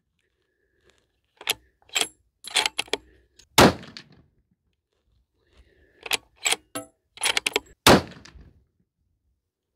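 Two shots from a Bergara Wilderness Ridge bolt-action rifle chambered in .300 PRC, about four seconds apart, each with a short ringing tail. Between them come runs of quick metal clicks and clacks as the bolt is cycled.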